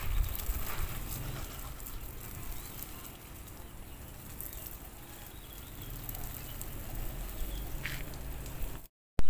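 Outdoor garden ambience with a low, uneven rumble of wind on the microphone and a few faint clicks; the sound cuts out for a moment near the end.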